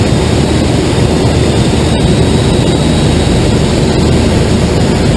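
Loud, steady rush of air and airframe noise inside a glider cockpit under aerotow, mixed with the towplane engine's drone.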